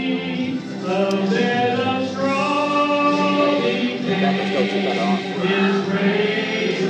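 Church choir singing a Christmas cantata song with a male solo voice, over steady held accompaniment.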